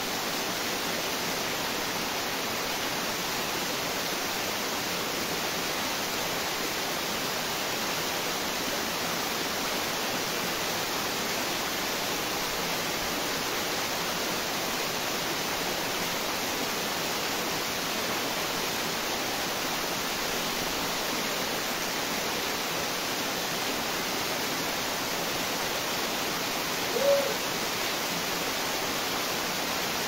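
Waterfall: a steady rush of water pouring down over rocks. One short pitched call stands out near the end.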